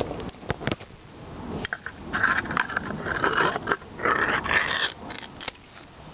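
Cat eating, with short chewing clicks and two longer rough animal sounds about two and four seconds in.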